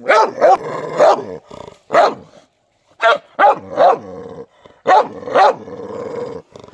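Large white dog barking hard, about nine loud barks in irregular clusters of two or three, with low growling held between some of the barks.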